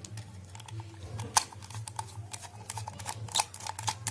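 Screwdriver and plastic hair dryer housing clicking and tapping as the casing screws are undone and the shell is opened: irregular small clicks, a sharper one about a second and a half in, over a low steady hum.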